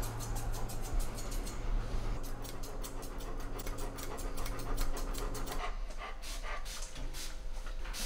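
Great Pyrenees–Bernese Mountain Dog mix panting rapidly, slowing to about three breaths a second near the end. A steady low hum runs underneath and stops about five and a half seconds in.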